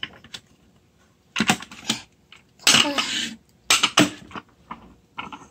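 A toddler's short, breathy vocal sounds, three of them, with light clicks of a metal spoon against a small glass jar.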